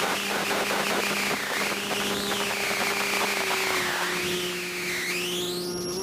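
Electric motor and propeller of an FPV aircraft, heard through its onboard camera: a steady hum under a whine that rises and falls several times with the throttle and climbs sharply near the end, over a rush of wind noise.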